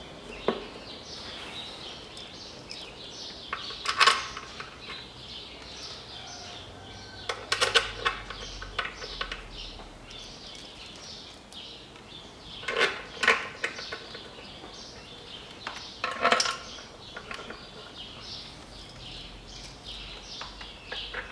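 Steel bolts clinking and rattling as they are picked up and started by hand into an engine valve cover, in a few short bursts several seconds apart.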